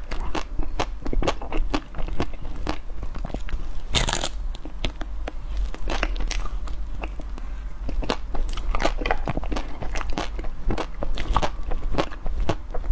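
Close-miked biting and chewing of a coated ice cream bar, the crisp coating cracking in many irregular sharp crunches, with a longer, louder crunch about four seconds in.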